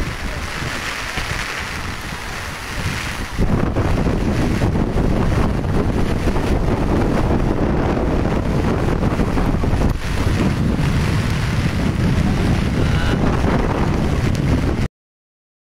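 Typhoon wind buffeting the phone's microphone over the rush of fast floodwater. The wind noise grows much louder about three seconds in, and the sound cuts off abruptly near the end.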